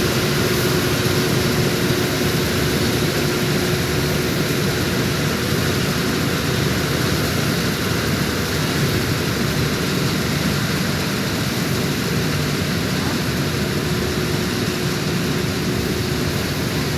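Vishal 435 combine harvester running steadily while cutting paddy: a constant machine drone with a steady held whine.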